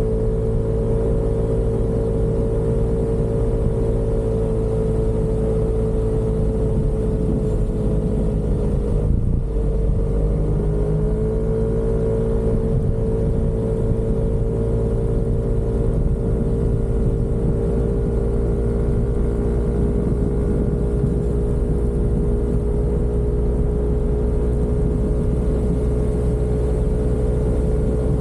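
Yamaha Aerox 155 scooter's single-cylinder four-stroke engine running at a steady cruise, with a low rumble underneath. Its pitch dips briefly about nine seconds in as the throttle eases, then climbs back.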